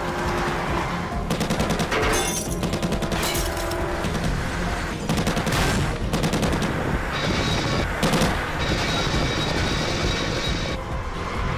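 Several bursts of rapid automatic gunfire, each a dense string of shots, over a continuous music score.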